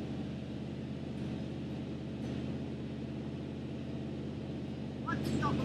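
1976 Chevrolet C65 truck engine running steadily at a constant speed.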